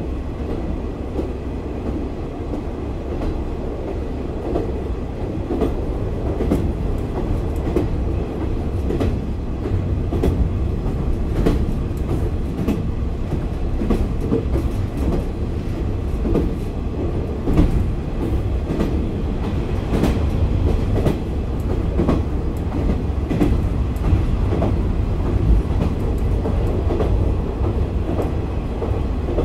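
A JR Kyushu KiHa 40 8000-series diesel railcar, re-engined with a Komatsu diesel, running along the line. Its engine gives a steady low rumble while the wheels click over rail joints, and the sound grows a little louder about ten seconds in.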